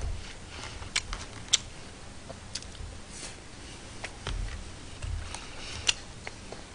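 Someone eating from a plastic takeout lunchbox with chopsticks: scattered sharp clicks of the chopsticks against the tray, with a few low thuds of chewing and handling.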